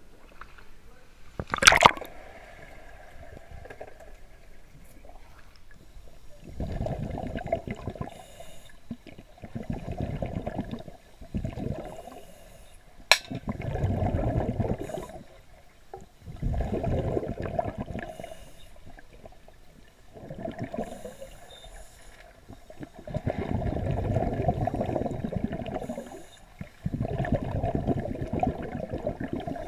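Underwater scuba breathing: bursts of exhaled bubbles from divers' regulators, each lasting one to three seconds with quieter pauses between, about every three seconds. A sharp splash about two seconds in as the camera goes under.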